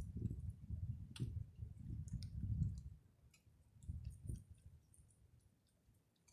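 Raccoon rooting through popcorn on a wooden table: small sharp clicks and crackles of popcorn being nosed and picked at. Low bumps and rumble sound in the first three seconds, then it goes quieter with two low knocks around four seconds in.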